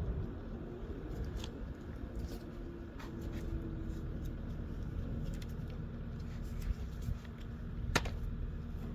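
Scattered light clicks and taps of tools and mower parts being handled, over a steady low background hum, with one sharp click about eight seconds in.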